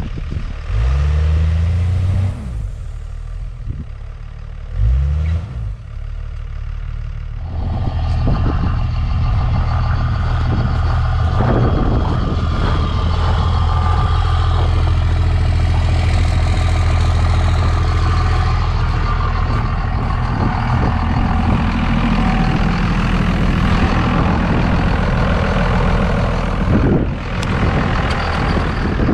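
Ram 2500 plow truck's engine revved in two short bursts that rise and fall in pitch, then running hard and steady from about seven seconds in as the truck is driven to power its way out of deep snow.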